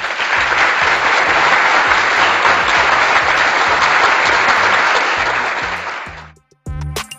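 Applause sound effect, steady clapping that fades out about six seconds in, over background music with a regular bass beat.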